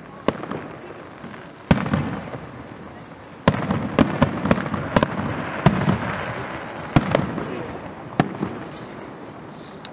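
Fireworks display: aerial shells bursting with sharp bangs every second or so, a quick string of them in the middle, each trailing off in a rumbling echo.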